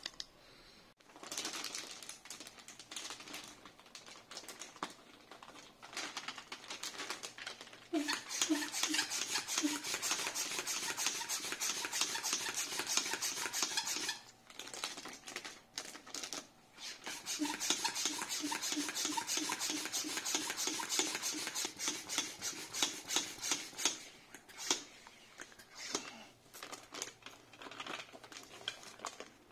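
Plastic manual hand pump drawing air out of a vacuum storage bag through its valve: quick repeated pumping strokes with rushing air and plastic rubbing, in two long spells with a short pause between them.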